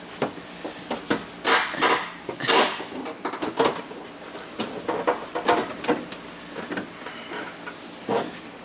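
Plastic Nissan 240SX front bumper cover being handled and pushed into place around a front-mount intercooler: irregular knocks, taps and scraping of plastic against the car, loudest around two seconds in.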